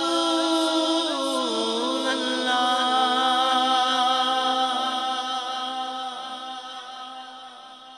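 Unaccompanied vocal chanting from a naat recitation: long, wordless held notes that slide slowly in pitch, fading out over the last few seconds.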